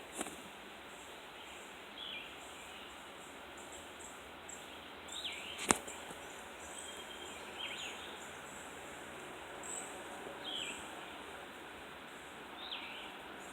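A bird calling over and over, short chirping notes every two or three seconds, over a faint outdoor hiss with higher chirps. A single sharp click comes a little before the middle.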